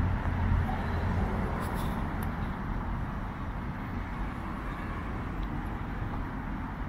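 Steady outdoor background noise: a low rumble with a hiss above it, a little louder in the first second, and a couple of faint clicks about two seconds in.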